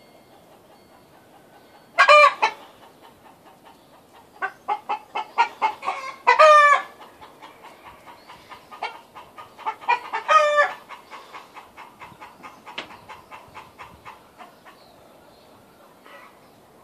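A flock of chickens clucking as they feed: runs of short, rapid clucks, broken by three loud calls about two, six and a half, and ten and a half seconds in.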